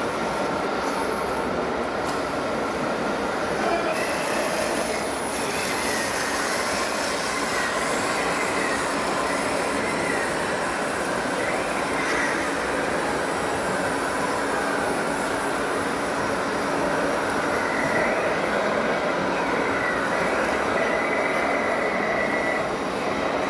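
Small-motor whine from an RC model tipping trailer's tipping drive as the loaded bed tilts up to dump wood chips. It wavers through the middle and holds a steadier high whine near the end, over a constant mechanical hiss.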